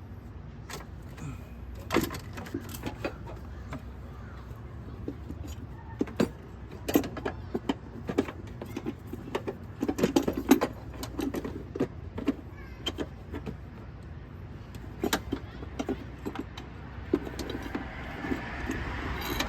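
Scattered metallic clicks, clinks and knocks of hands and tools working a car battery and its hold-down hardware in the engine bay, busiest about halfway through, over a steady low background hum.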